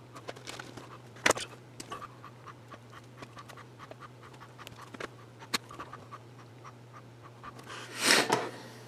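Light clicks and taps of small tools and wire being handled while soldering leads onto a slide switch, over a steady low hum. A short, loud breath comes near the end.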